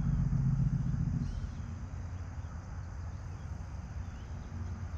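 Open rural ambience: the low rumble of a distant vehicle fades away about a second in, leaving a steady background hum with faint high chirps.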